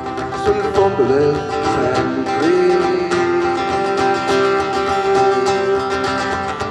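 Live folk-song instrumental passage: acoustic guitar strumming under long held melody notes, with a few pitch bends about a second in.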